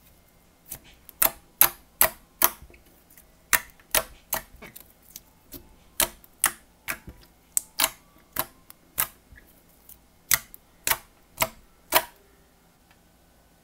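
Fingers poking and pressing into thick, glossy slime, squeezing out sharp wet pops and clicks, about two a second. They start about a second in and stop near the end.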